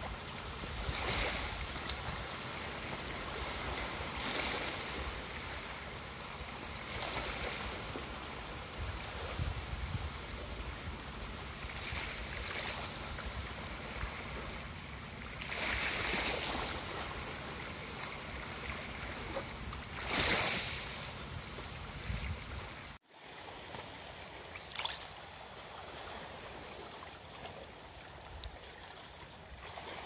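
Small waves washing and breaking on a shallow, rocky mangrove shore, a swell of surf every few seconds over a low rumble. After a cut about three quarters of the way in, a softer trickle of shallow water lapping among mangrove roots.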